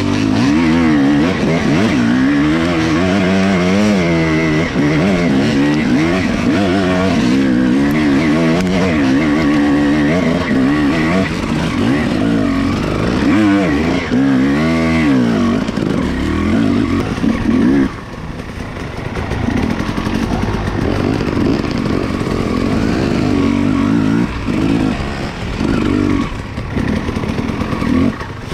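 Dirt bike engine being ridden off-road, its pitch rising and falling over and over as the throttle is worked through the revs. About two-thirds of the way through it drops to a lower, quieter running.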